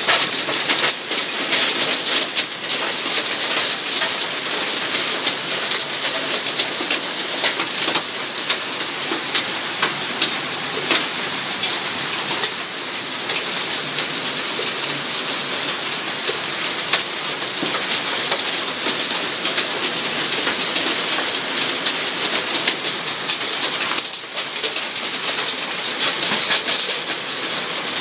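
Hailstorm: hailstones falling with rain, a dense, steady rattle of countless small impacts with sharper individual clicks scattered through it.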